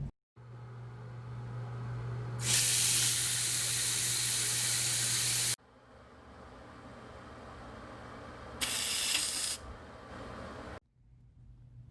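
Hissing spray in two bursts: a long one of about three seconds starting a couple of seconds in, and a shorter one of about a second near the end, over a low steady hum.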